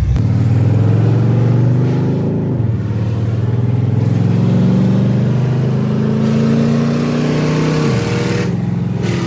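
Car engine accelerating hard through the gears: the pitch climbs for about two seconds, drops at a gear change, climbs again for about five seconds and drops at a second shift near the end.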